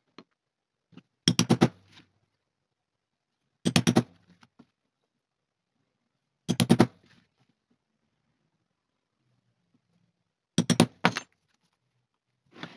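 A steel hammer tapping a steel leather punch through Crazy Horse leather into a white poly punching board. The strikes come in four quick bursts of several sharp knocks each, a few seconds apart.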